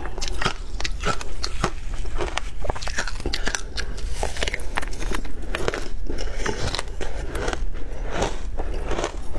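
Crushed ice being bitten and chewed close to a clip-on microphone: dense, irregular crunching and crackling.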